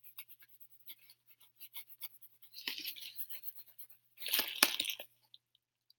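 Plastic packaging and bubble wrap crinkling and rustling as it is handled, in small crackles with a louder burst about three seconds in and another about four seconds in.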